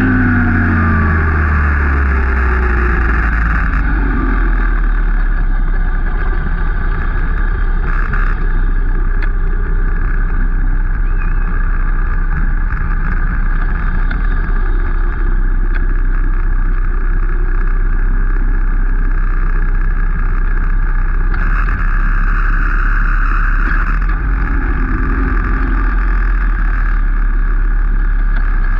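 Onboard sound of a small youth racing minibike engine, its pitch falling over the first second as it comes off the throttle. It then runs steadily at low revs while the bike rolls slowly along.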